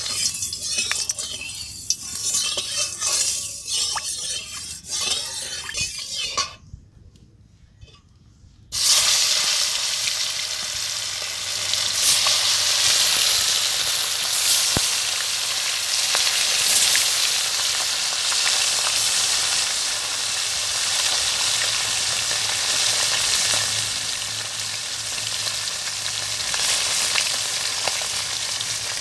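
A metal spatula scrapes and spreads oil around a metal wok in irregular strokes, then there is a short lull. About nine seconds in, the hot oil suddenly breaks into loud, steady sizzling with small pops as turmeric-coated koi fish (climbing perch) fry in it.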